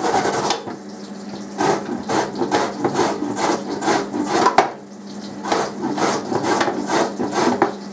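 A carrot being grated by hand on the metal grating blade of a plastic slicer-grater with a catch box. Rhythmic rasping strokes come about two to three a second, with short pauses about a second in and about five seconds in.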